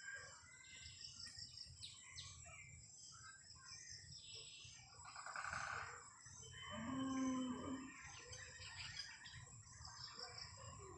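Evening chorus of many small birds chirping over one another, over a steady high whine. About five seconds in comes a buzzy, rasping call, and just after it the loudest sound, a lower call whose pitch wavers.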